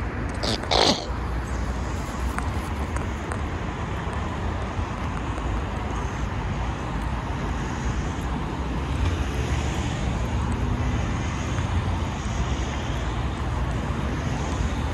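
Steady city road traffic: vehicles running past on the street. About half a second in, a brief loud burst of noise stands out above it.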